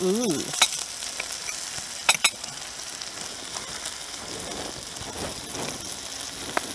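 Pork belly sizzling on a tabletop grill, a steady hiss, with a few sharp clicks of metal utensils against dishes.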